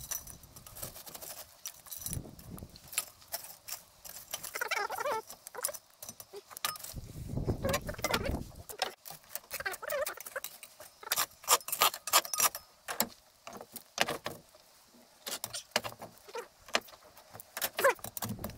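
Pieces of burning charcoal clinking and scraping as they are shifted in an irori hearth and heaped onto a Dutch oven's lid to cook from the top. There is an irregular run of sharp clinks, with a duller, heavier scrape about seven to eight seconds in.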